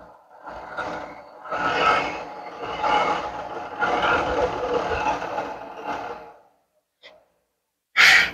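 End mill on a Bridgeport milling machine cutting acetal plastic: a rasping cut that comes in uneven surges for about six seconds, then stops abruptly. A short, loud, sharp noise comes near the end.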